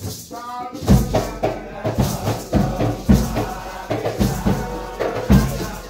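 Nyahbinghi drumming and chanting: a heavy bass drum beats about twice a second under a group singing, with a rattle of hand percussion on top.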